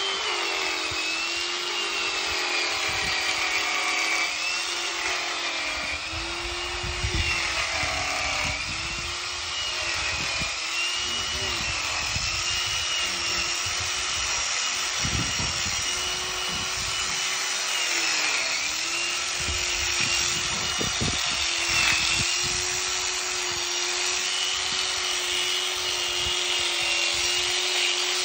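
Corded electric horse clippers running steadily as they clip a draft horse's coat, a hum whose pitch dips and recovers every few seconds.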